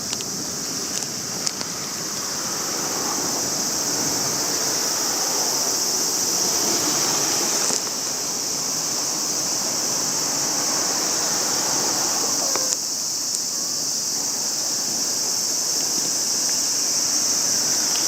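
A steady, unbroken high-pitched insect chorus drones throughout, over a lower rushing noise.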